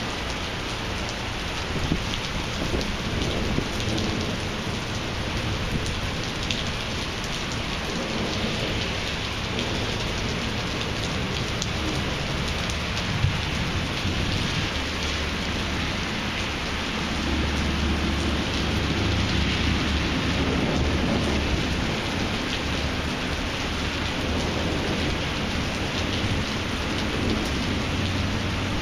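Heavy thunderstorm rain pouring steadily onto pavement and parked cars, with scattered drops ticking close by. A low rumble of thunder rolls in past the middle and swells before easing.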